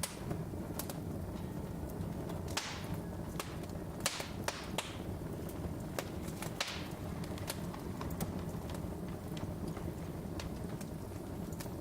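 Wood fire burning in a fireplace: irregular sharp crackles and pops over a steady low rumble of flames, with a few louder pops in the middle.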